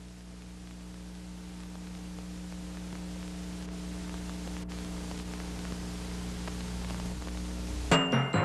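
A steady low hum with hiss, slowly growing louder. About eight seconds in, a loud timpani stroke opens the closing music.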